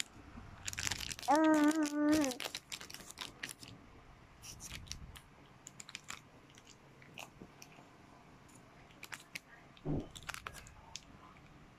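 Clear plastic wrapper crinkling and clicking in a baby's hands, in scattered short crackles. A brief held vocal note comes about a second and a half in.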